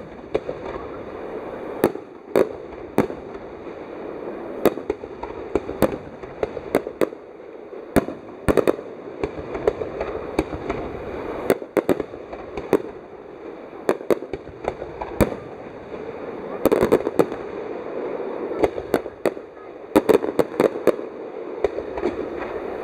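Aerial fireworks bursting in a display: sharp reports come about once a second over a continuous background rumble, with denser clusters of rapid bursts about two-thirds of the way through and again near the end.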